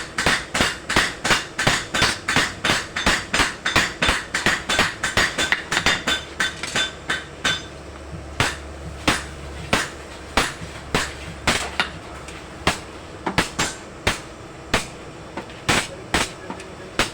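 Hand hammer blows on steel on an anvil while forging a dagger blade: quick strokes about three a second with a bright metallic ring, slowing about halfway through to single blows every half second to a second.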